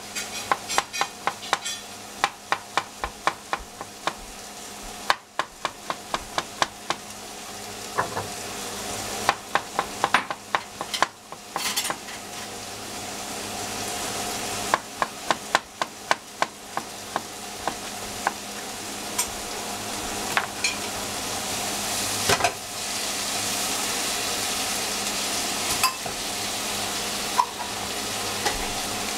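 Vegetables sizzling in a frying pan, the sizzle growing steadily louder. Over the first half, a knife cuts zucchini on a cutting board in quick regular strokes, about two to three a second; later there are only a few clicks.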